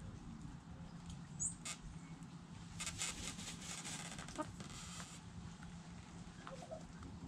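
Chickens scratching and dust bathing in dry dirt: scattered scrapes and flicks of soil, with a dense run of scratching about three seconds in that lasts about two seconds, over a low steady hum.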